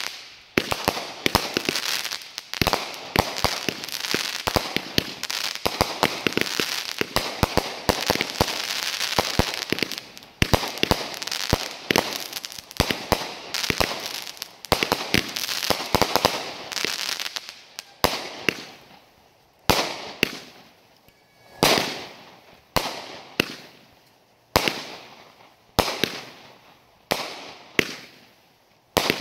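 200-gram consumer firework cakes firing: a dense, rapid barrage of shots and crackling for a little over half the time, then separate bangs about once a second, each trailing off.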